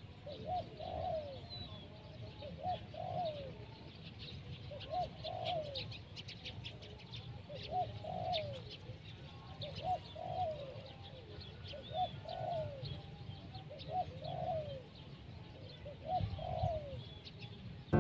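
Spotted dove cooing, a short two-part phrase repeated about every two seconds: the decoy dove calling from the ground to lure wild doves down. Faint high chirps of small birds sound over it.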